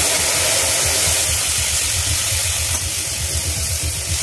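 Wet spice paste poured into hot oil in an aluminium kadai, sizzling with a loud, steady hiss as its water turns to steam.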